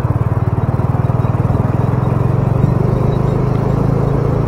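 Bajaj Dominar motorcycle's single-cylinder engine running at low revs, with a steady rapid thudding beat.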